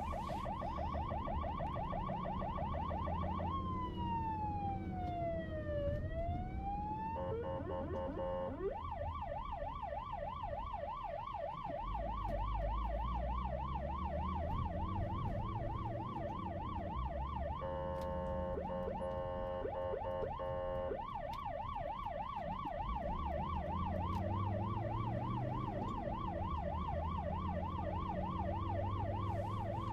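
Emergency vehicle siren in traffic, mostly on a fast rising-and-falling yelp. Near the start it switches for a few seconds to a slow wail that falls and rises again. About two-thirds through, a steady blaring horn tone lasts about three seconds before the yelp resumes. Low traffic rumble runs underneath.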